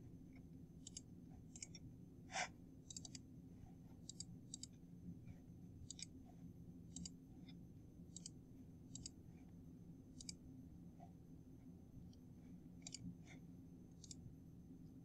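Computer mouse clicking, about twenty separate clicks, some in quick pairs, the loudest about two and a half seconds in, over a faint low steady hum.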